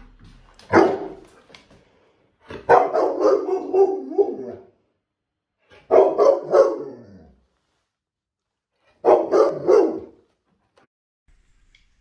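Bernese mountain dog barking and grumbling in four loud outbursts, the middle ones drawn out for a second or two and trailing off in pitch: a scolding morning grumble.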